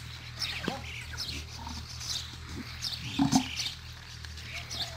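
Small birds chirping repeatedly over a steady low hum, with one louder short call a little past three seconds in.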